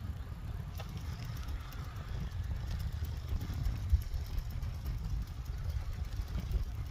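Wind buffeting the microphone and tyre noise while riding a bicycle along a road, as a steady low rumble with a single small bump about four seconds in.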